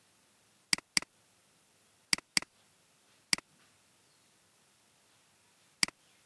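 Computer mouse clicking: six sharp clicks, two of them quick pairs like double-clicks, over faint room hiss.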